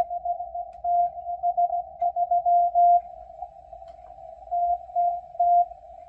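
Morse code from the M12 numbers station received on shortwave through a Yaesu FTdx10: a single steady tone keyed in dots and dashes over constant static. The keying stops for about a second and a half near the middle, then a few more characters follow.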